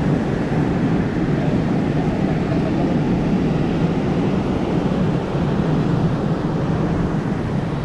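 Steady low rushing noise with no separate events, as heard outdoors on a walking camera.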